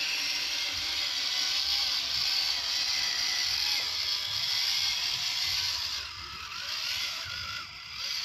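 Scale RC Jeep crawler's motor and gear drivetrain whining as it crawls over wet rocks, the pitch wavering up and down with the throttle; the sound drops and thins about six seconds in.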